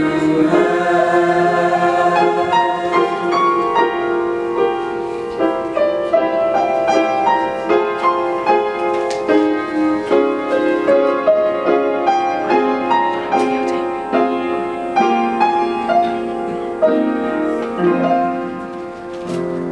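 Upright piano playing the closing passage of a choral piece, a run of struck notes each ringing away, after the choir's held chord at the start; the playing fades out near the end.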